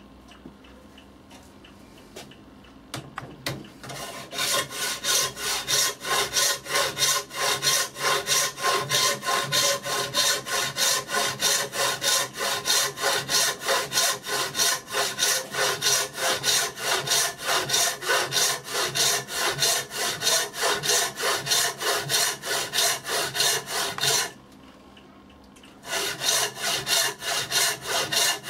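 Traditional Chinese frame saw ripping down a hard wooden block held in a vise, in fast, even strokes of about three a second. The sawing starts about four seconds in and stops for a moment near the end before going on.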